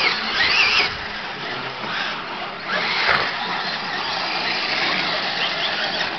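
Radio-controlled monster trucks racing on a dirt track, their motors whining up and down in pitch as they accelerate and brake, over a steady outdoor hiss.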